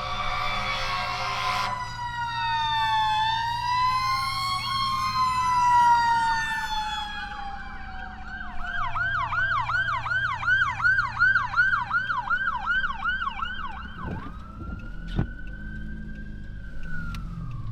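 Emergency-vehicle sirens passing close by. A steady horn blast ends about two seconds in. Then two sirens wail over each other, one switches to a fast yelp at about three to four cycles a second, and a slow wail returns near the end.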